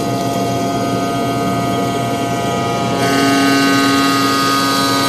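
Factory machinery running with a steady hum made of several fixed pitches. About three seconds in it shifts to a slightly louder hum with a stronger low pitch.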